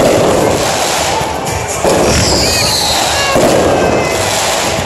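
Aerial fireworks going off in a dense run of bangs and crackling. A fresh burst starts about two seconds in, followed by a high falling whistle.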